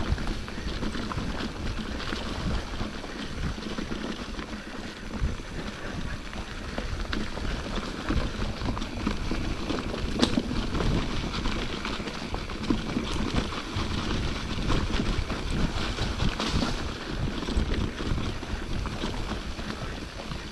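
Wind buffeting the camera microphone, with tyres and bike rattling over a dirt trail on a mountain bike descent, and a sharp knock about ten seconds in.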